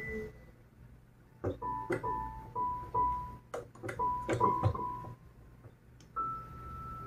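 Cat pressing the keys of a digital piano keyboard with its paw, sounding scattered single notes one at a time with soft key knocks, after a quiet first second or so. Near the end it strikes a slightly higher note that rings on.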